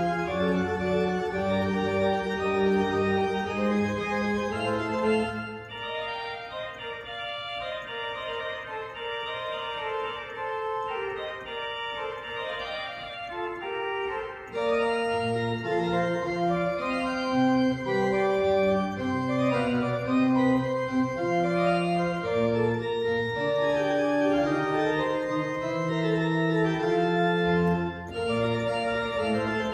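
Church organ playing sustained chords over a low bass line. About five seconds in it drops to a softer passage without the bass, and about halfway through it swells back to full, louder registration with the bass returning.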